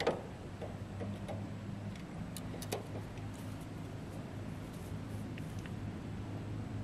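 A steady low hum with a few faint metal clicks from a pair of locking pliers clamped on a broken stud as they are worked, about the start and a couple more about two and a half seconds in.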